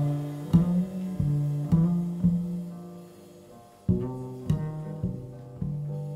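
Live jazz-trio music: a slow line of single plucked low string notes, about one every half second, in two phrases with a brief lull between them, each note ringing and fading.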